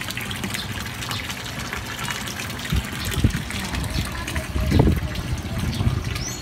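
Water gushing steadily into a koi pond, splashing and bubbling on the surface, with a few low thumps about three and five seconds in.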